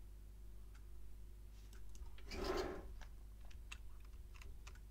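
Sparse, faint clicks of a computer mouse and keyboard as an answer is typed into a web form, with a short, louder rush of noise about halfway through.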